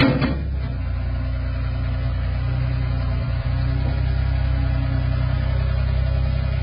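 Gehl 4835 skid steer's diesel engine running at a steady speed, with a brief sharp knock right at the start.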